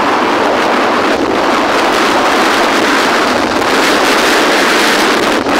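Steady loud wind rushing over the microphone of a moving motorcycle, mixed with its road and engine noise.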